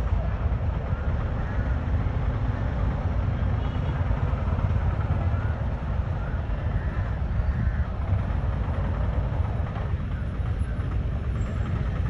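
Steady low rumble of road traffic and vehicles near the roadside, with faint crowd voices underneath.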